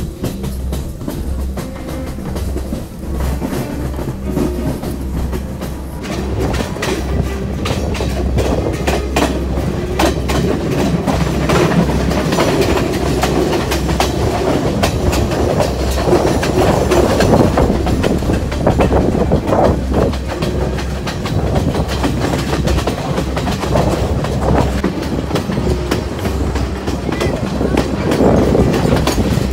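Passenger train running along the line, heard from aboard at an open carriage window: a steady low rumble with the wheels clacking over the rail joints.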